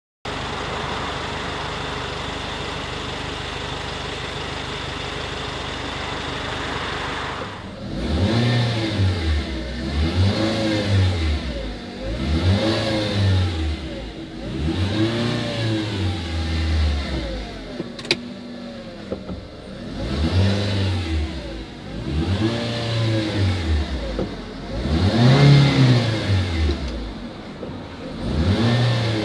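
Small car engine running steadily at idle, then, about seven seconds in, revved up and let fall again over and over, every two to three seconds. A single sharp click comes near the middle.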